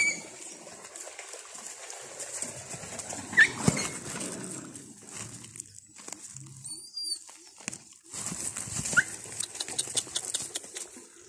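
A few brief high-pitched animal calls, one of them an arching chirp about seven seconds in, over scattered clicks and rustling.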